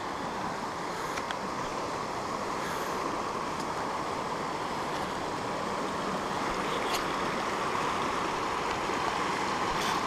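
Uncompahgre River, running high with rain water, rushing over rocks in a steady wash of noise that slowly grows a little louder.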